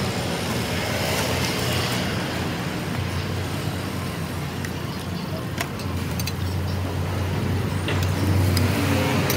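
Steady hum of road traffic beside a street food stall, with a few sharp clicks of metal spatulas against a roti griddle.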